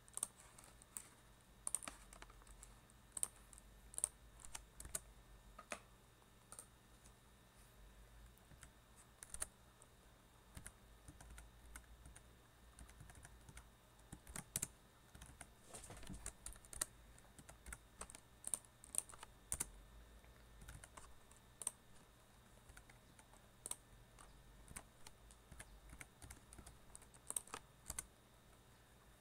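Computer keyboard being typed on, with keystroke clicks coming in irregular runs and pauses.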